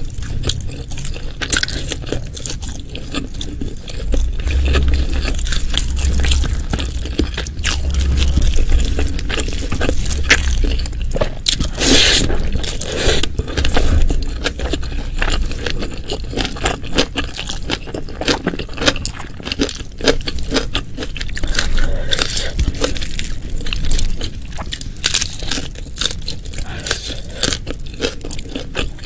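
Close-miked eating sounds: a person biting, chewing and crunching food, with many quick sharp clicks and scraping noises. A low rumble runs under the chewing from about four to ten seconds in.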